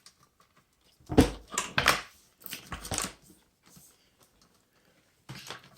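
Handling noise of guitar pedals, power adapters and cables being moved around on a pedalboard: a cluster of knocks and rustles about a second in, a shorter one around three seconds, then a few faint ticks.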